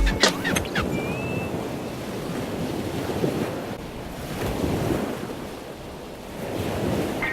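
Ocean surf washing onto the beach, rising and falling gently, with wind rumbling on the microphone.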